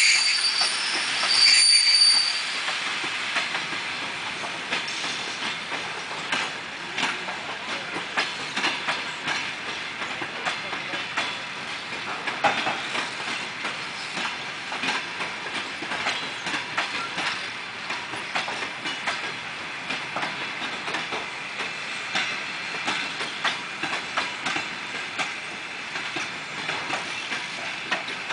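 Passenger coaches of an arriving train rolling past slowly, a high metallic squeal during the first two seconds or so as it brakes, then the wheels clicking over rail joints and points at a slow, uneven pace.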